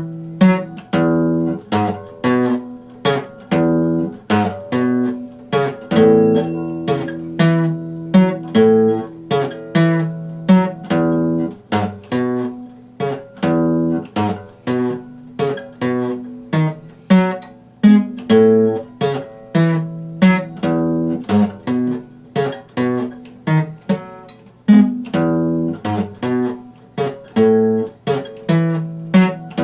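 Epiphone acoustic guitar strummed in a steady rhythm of chords, the chords changing as it goes.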